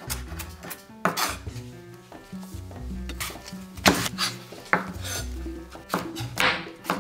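Cutlery clinking and scraping against a dish as food is stirred, with a few sharp knocks (the loudest about four seconds in), over background music.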